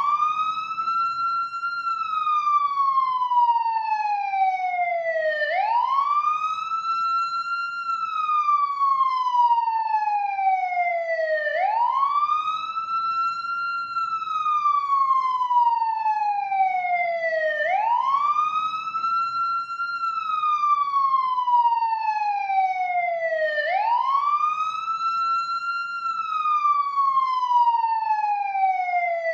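Ambulance siren sounding a slow wail: each cycle rises quickly in pitch, then falls slowly, repeating about every six seconds, about five times. A faint low rumble runs underneath.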